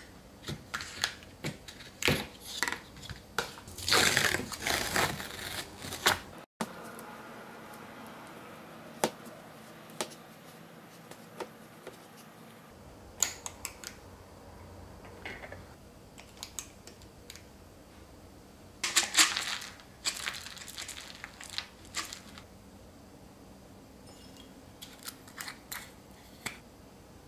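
Kitchen handling noises in short bursts with quiet gaps: a stainless steel ice cream scoop scraping through ice cream in a paper tub and clicking its release lever as it drops scoops into a waffle bowl, with light rustles and clinks.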